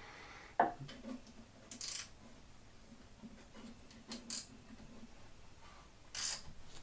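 A few faint, scattered metal clinks and clicks with brief scraping or rustling sounds: small mini lathe parts being handled and set in place.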